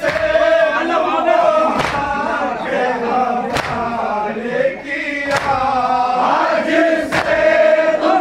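Men's voices chanting a farewell latmiyah (Shia lament) in unison, with a sharp slap about every second and three-quarters as the mourners beat their chests (matam) in time with the chant.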